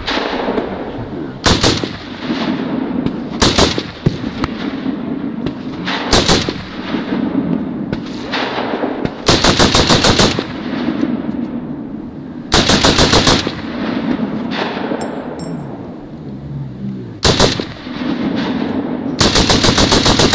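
Colt M16A1 5.56 mm rifle fired on full automatic in about seven bursts, some short and three lasting about a second, each shot followed by echo.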